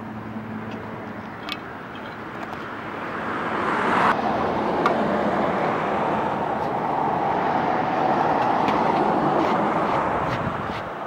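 A vehicle passing on the street, its noise swelling from about three seconds in, holding, and fading near the end, with a few light metal clinks of a pick against a metal curb grate.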